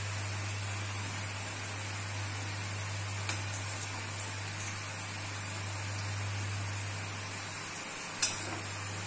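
Besan sev frying in hot oil in a steel kadhai: a steady sizzle. Two sharp clicks sound, a small one about three seconds in and a louder one near the end.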